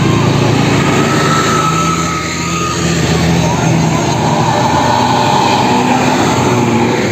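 Diesel tour-coach engines running as the buses pull out one after another, a steady low drone. A thin high tone sounds for about a second near the start, and a wavering higher sound runs through the middle.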